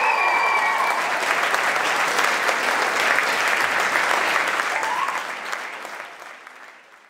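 Audience applauding. A held musical note ends about a second in, and the applause fades out near the end.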